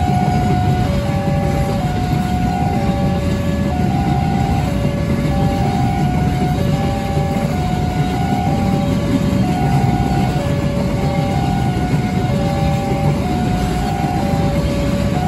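Freight train of empty container flat wagons rolling past, a steady loud rumble of wheels on rail. Over it the level crossing's electronic warning bell sounds, alternating between two notes about every half second.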